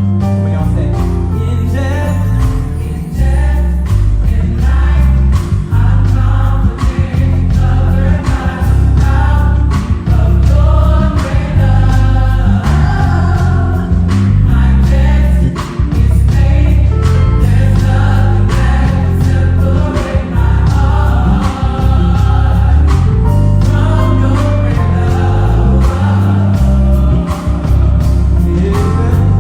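Gospel vocal ensemble singing live over a full band, with a prominent Fender Jazz electric bass playing a moving bass line and drums keeping a steady beat.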